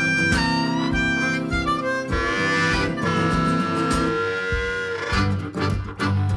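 Background music: a harmonica melody with held and bending notes over a plucked guitar accompaniment.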